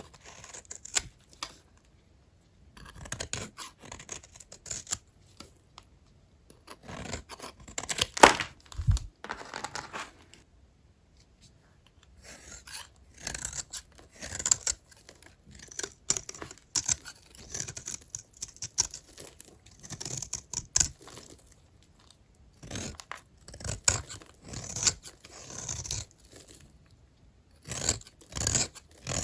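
Knife cutting through old, dry hotel soap bars: crackly scraping strokes in bunches of a few seconds, with short pauses between them.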